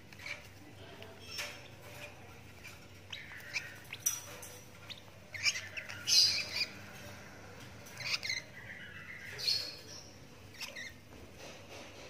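Lovebird chick about 17 days old giving short, high chirping calls at irregular intervals, loudest in a cluster about halfway through.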